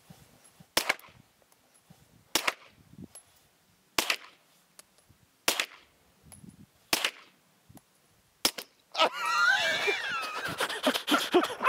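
Six suppressed 9mm pistol shots, each a sharp crack, about a second and a half apart, from a Springfield Armory Hellcat Pro fitted with a Silencer Co. Omega 9K full-size suppressor on its threaded barrel. About nine seconds in, a continuous warbling sound sets in.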